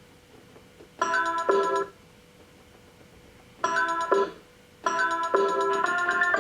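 Casio SA-75 mini keyboard playing short electronic melodic phrases in bright, beep-like tones. Two brief snatches come about a second in and again near the middle, with silence between them. From about five seconds in the notes play on without a break.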